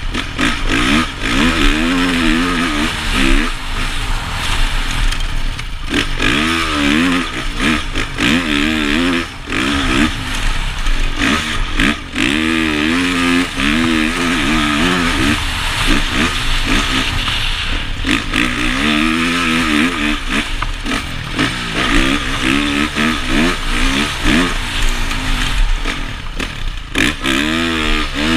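Honda CRF450 motocross bike's single-cylinder four-stroke engine, heard from a helmet camera while riding. The revs climb and drop again and again every few seconds as the throttle is opened and closed through the track's straights and corners.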